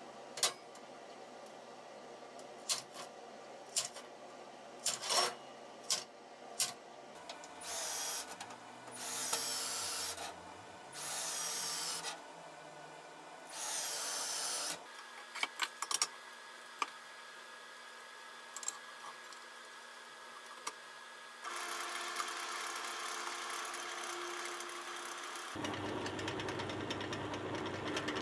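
Square steel tubing knocking and clanking on a steel welding table, then a handheld drill whirring in four short bursts as it drills marked holes in the tube. Near the end a bench drill press runs steadily, its step drill bit cutting into the tube held in a drill vise.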